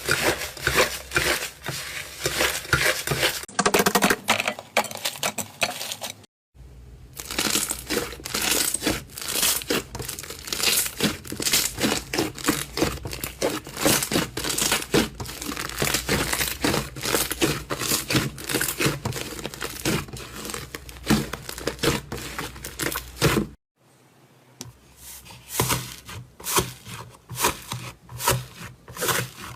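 Slime being squeezed, poked and stretched by hand, giving dense, irregular crackling and popping. Two short silences break it, about six seconds in and again about 24 seconds in.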